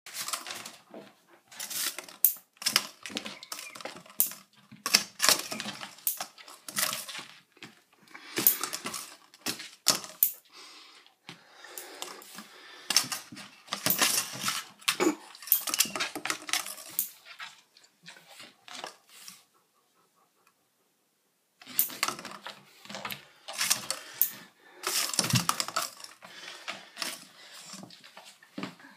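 A cardboard tube being batted back and forth under a door by a cat, clattering and scraping against the wood floor and the door edge in quick irregular taps, with a pause of about two seconds about two-thirds of the way through.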